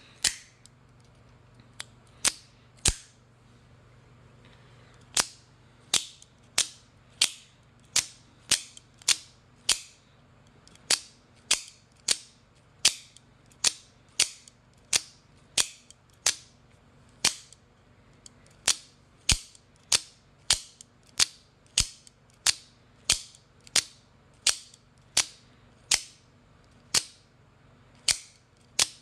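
AKC F-16 out-the-front automatic knife firing its blade out and back again and again, a sharp snap from the spring mechanism at each stroke. The snaps come about one every half second or so, with a pause of about two seconds a few seconds in.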